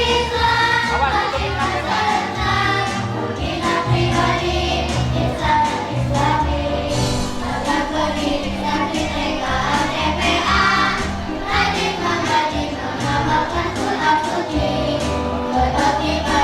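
Choir of Quran-school children singing a sholawat, an Islamic devotional song, over musical accompaniment with a repeating bass line.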